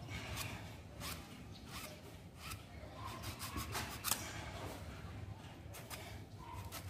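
Short, irregular scraping and rubbing strokes from hands working the copper winding wire of a rewound toroidal transformer.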